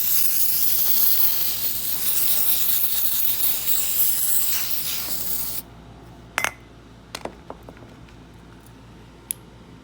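Aerosol lock lubricant spraying from a can in one long continuous hiss that cuts off suddenly about five and a half seconds in. Then come a few light, sharp clicks.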